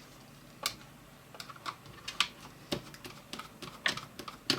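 Irregular small clicks and ticks of a screwdriver working the small screws that hold the hard drive inside a Mac mini G4: metal tapping and scraping as the screws are loosened, about ten sharp clicks spread unevenly.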